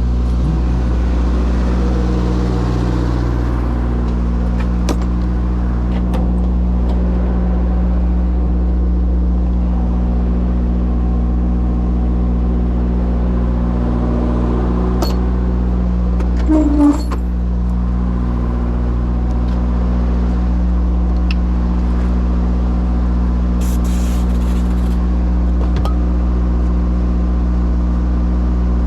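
An engine running at a steady idle, with scattered light clicks and a brief louder clatter about two-thirds of the way through.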